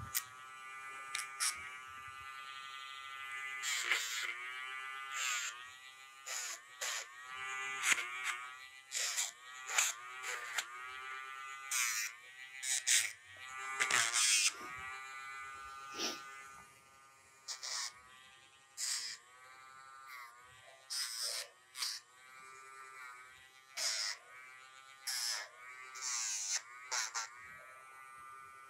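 Electric dog nail grinder running while it files a puppy's claws. Its motor pitch sags each time it is pressed to a nail, with a short gritty grinding sound, then picks back up, over and over.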